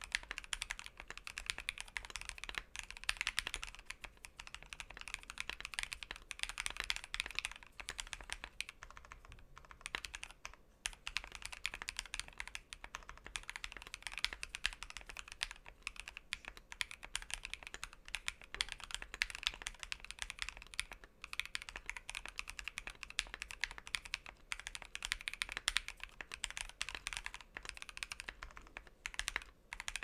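Continuous typing on a custom 65% mechanical keyboard: a Tofu65 case with lubed and filmed JWK Alpaca linear switches and NP PBT keycaps. Rapid, even keystroke clacks with a couple of brief pauses.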